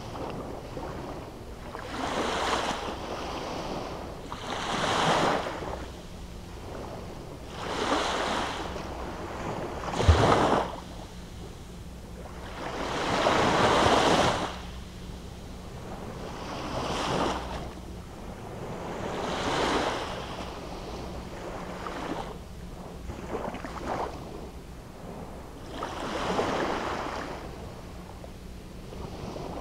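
Small waves breaking and washing up on a sandy beach, a swell of surf noise every few seconds that rises and falls away. There is a brief thump about ten seconds in.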